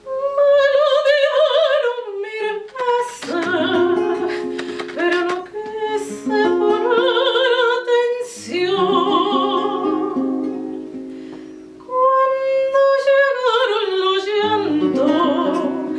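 A woman singing in a trained operatic style, with long held notes and wide vibrato, over a classical guitar plucking the accompaniment. Her voice fades briefly about two-thirds of the way through, then comes in strongly again.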